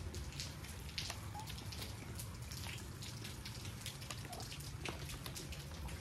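Light rain or rainwater dripping: many scattered, irregular drops tapping, over a low steady rumble.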